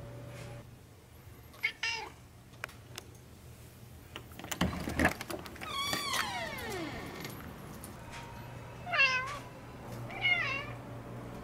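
Domestic cat meowing four times, one longer call near the middle sliding down in pitch, with a brief thump just before it.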